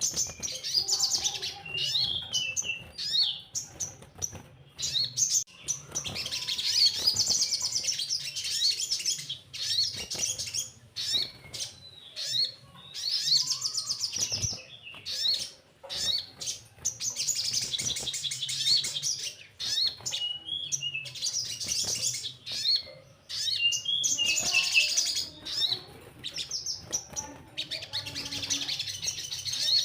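Ruby-cheeked sunbird (sogon) singing: rapid, high twittering and trilled chirps in bursts of a few seconds, with short breaks between.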